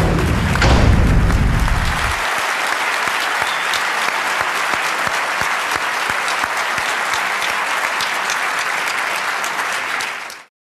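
Large audience applauding, a dense patter of clapping that cuts off abruptly near the end, with a low rumble over the first two seconds.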